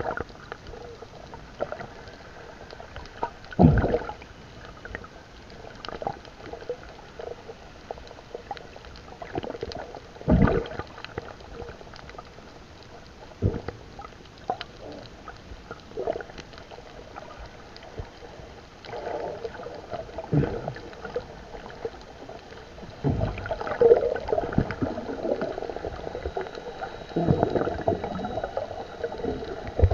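Muffled underwater ambience of bubbling and gurgling water, with sharp dull thumps every few seconds. The bubbling grows busier over the last several seconds.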